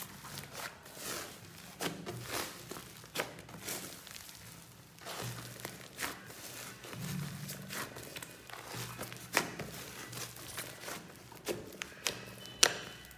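Clay-mixed slime being kneaded and pressed by hand, with wet squishing and sharp popping clicks as air pockets burst, the loudest pops near the end. Quiet background music plays underneath.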